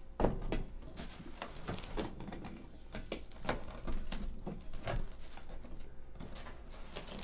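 People eating pizza close to the microphone: irregular chewing, lip smacks and small clicks.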